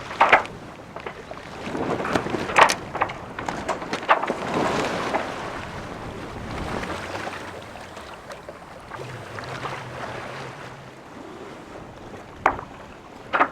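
Wind on the microphone and water sloshing along the hull of a sailboat lying becalmed, rising and falling in swells, with a few sharp knocks: one near the start, a couple in the first few seconds, and two near the end.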